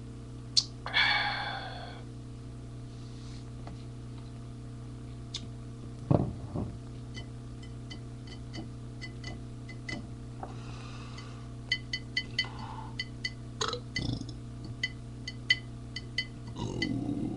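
Light clicks and clinks, with a quick run of them near the end, two short low sounds around the middle, and a brief falling ringing tone about a second in, over a steady hum.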